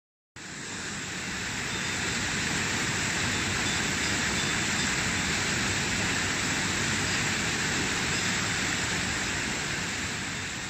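Alpine mountain stream rushing over rocks: a steady roar of white water that fades in at the start.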